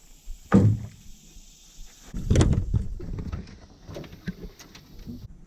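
Bumps and thuds of handling in a small fishing boat, with two louder, dull thumps about half a second and two and a half seconds in, and lighter knocks between.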